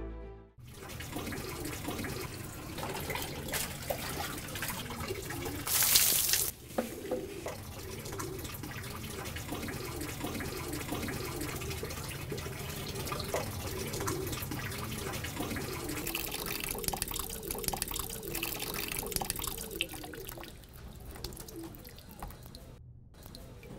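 Water running and splashing, as from a tap, with a brief louder splash or gush about six seconds in.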